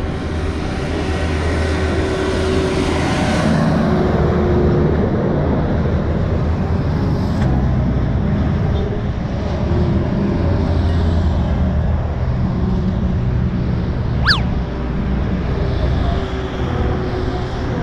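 Highway traffic: vehicles running and passing on the road, a steady low engine hum under a wash of road noise. A brief, sharp, high-pitched chirp cuts through about fourteen seconds in.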